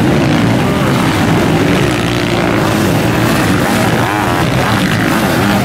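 A pack of motocross engines, solo bikes and sidecar outfits, running hard together, their pitches rising and falling as they rev.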